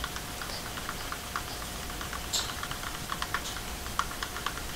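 Light, irregular plastic clicks and taps, a few a second, from gloved hands handling a small plastic cup.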